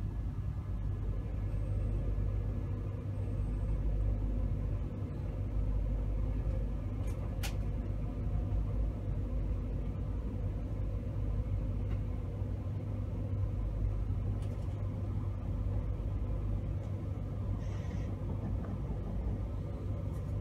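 Steady low rumble and hum inside a Class 91-hauled passenger coach, with a single sharp click about seven seconds in and a brief hiss near the end.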